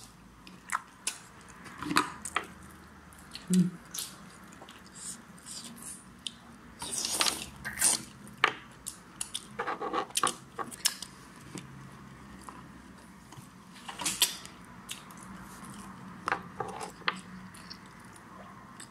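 Scattered eating sounds: short mouth smacks and chewing, with spoons clinking and scraping against plastic bowls of rice.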